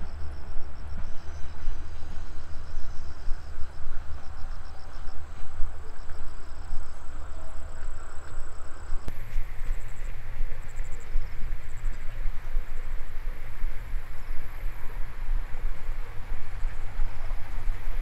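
Insects chirping in rows of short, rapid pulses over a strong, fluctuating low rumble. The sound changes abruptly about nine seconds in.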